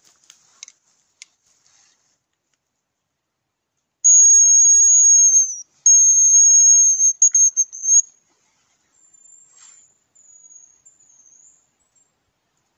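Hazel grouse decoy whistle blown: two long, thin, very high whistles, the first dipping at its end, then a quick run of short broken notes. A few seconds later fainter, wavering high whistles answer, a hazel grouse responding to the call.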